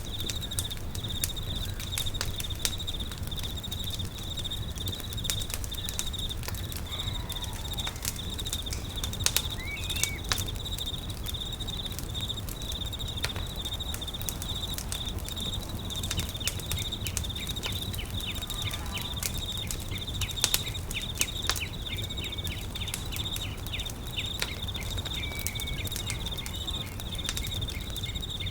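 Campfire crackling with frequent sharp pops, over a steady high-pitched, pulsing insect trill, with a few brief bird chirps.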